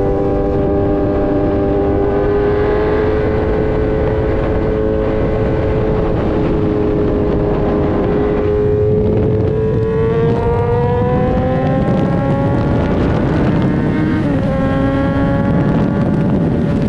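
Kawasaki Z900 inline-four running through an Austin Racing full exhaust at road speed, with wind rush underneath. The engine note holds steady, eases off briefly about nine seconds in, then climbs as the bike accelerates, with a gear change about fourteen seconds in.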